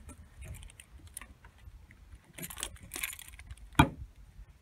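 A car key jangling and scraping as it is fitted into the key-operated bonnet lock behind the badge of a 2007 Ford Focus, with a few light taps and one sharp metallic click a little before the end. This is the bonnet release being worked with the key after a home repair of its snapped lock.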